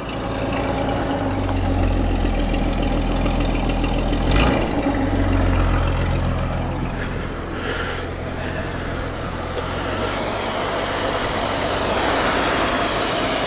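A 1947 Dodge half-ton pickup's six-cylinder side-valve engine idling steadily and very quietly, an even idle taken as a sign the engine is in healthy shape. A single brief knock comes about four seconds in.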